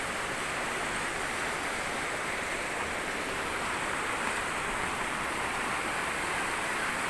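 Jungle river water flowing steadily, an even rushing hiss with no breaks.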